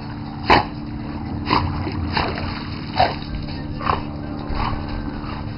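A dog barking in short single barks, about six of them, each a little under a second apart.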